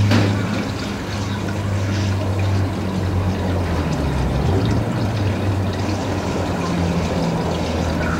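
Steady low mechanical hum, slightly wavering in pitch, over an even rushing hiss like running water.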